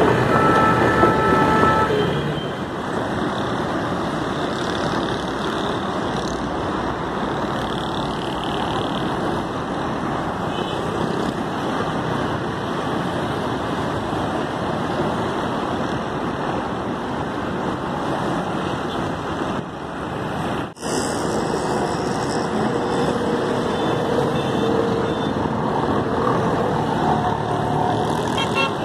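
Busy road traffic: a steady rush of passing cars and trucks, with a vehicle horn sounding briefly near the start.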